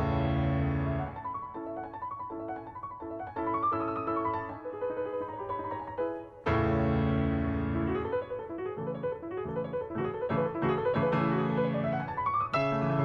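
Background piano music: held chords broken by quick rising runs of notes, with a new loud chord struck about halfway through.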